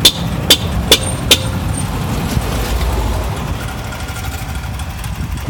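Diesel engine of a Caterpillar backhoe idling steadily. Over it, a run of sharp clicks about two a second stops about a second and a half in.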